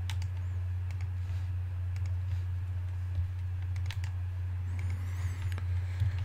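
Scattered clicks of computer keys and a mouse as a list is copied and pasted into a web form, over a steady low electrical hum.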